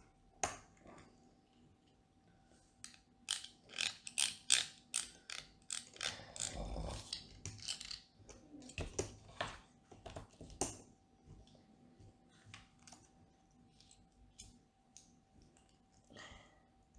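Plastic LEGO pieces clicking and clattering as they are handled and pressed together: a quick run of sharp clicks through the middle, with a longer rattle about six to eight seconds in, then sparser clicks.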